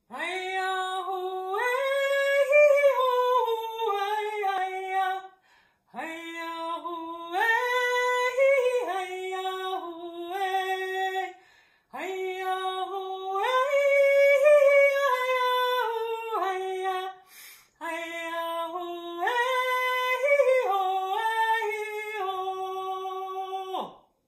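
A woman singing alone, unaccompanied, in four similar melodic phrases of about five seconds each. Each phrase starts with a quick scoop up into the first note, and there are short pauses for breath between them.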